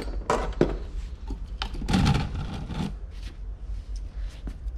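Salvaged hardware being handled and moved about: rubbing and scraping with a few light knocks, the loudest stretch about two seconds in.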